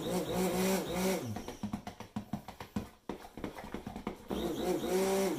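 Hand-held stick blender pulsed in soap batter of oils and lye: a motor whine for about a second that winds down, stirring noise, then a second burst from about four seconds in that also winds down. The batter is being blended toward a light trace.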